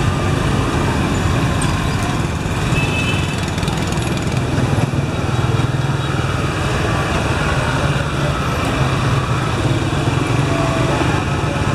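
Steady street traffic dominated by motorbike engines running close by, with a constant low hum, heard from an open-sided vehicle moving through it.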